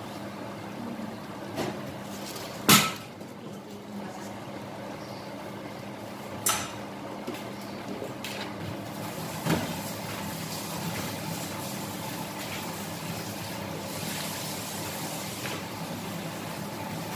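Vegetables cooking in a wok with a steady sizzle, broken by three sharp knocks against the pan as more vegetables go in, the loudest about three seconds in. The sizzle turns brighter and fuller from about halfway through.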